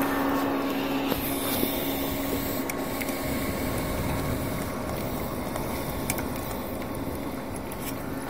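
Steady wind buffeting the microphone while under sail, with a few faint clicks; a low hum fades out about a second in.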